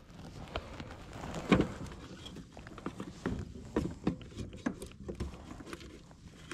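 Irregular knocks and taps as a spotted bass is laid on a plastic fish-measuring board and held down by hand, the loudest knock about a second and a half in.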